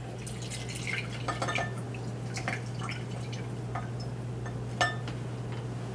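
Lemon juice pouring and dripping into a glass bowl, with a few light clinks, over a steady low hum.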